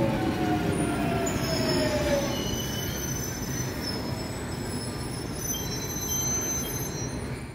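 Jubilee line 1996-stock tube train passing and moving away over the rails, its whine falling in pitch in the first couple of seconds. High-pitched wheel squeal comes and goes from about a second in as the train runs on, and the running noise slowly fades.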